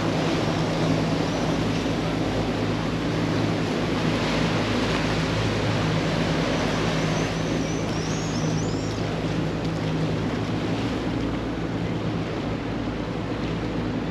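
Engine of a wooden motorboat running steadily at cruising speed, a low drone over the rush of water along the hull and wind on the microphone.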